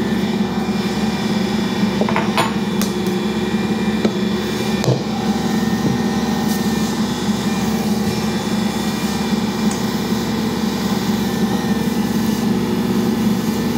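Ankarsrum stand mixer running steadily at a constant pitch as its roller kneads bread dough in the turning stainless bowl. A few sharp knocks come in the first five seconds.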